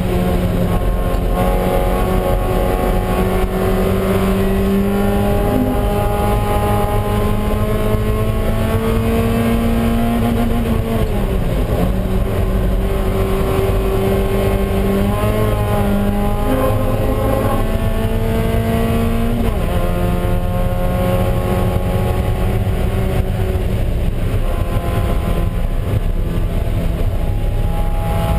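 Mazda Miata race car's four-cylinder engine pulling hard, heard from inside the stripped, caged cabin with road and wind noise. Its pitch climbs slowly and drops sharply twice, about eleven and nineteen seconds in.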